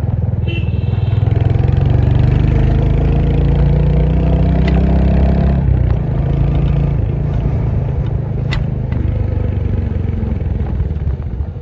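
Royal Enfield Hunter 350's single-cylinder engine and exhaust pulling up through the revs for about five seconds. The revs then drop suddenly and it runs on lower and steadier. A brief high beep sounds near the start, and a couple of sharp ticks are heard.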